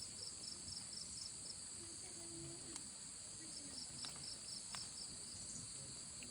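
Insects chirping faintly: a steady high-pitched trill with a repeating chirp, about three to four a second, that comes and goes.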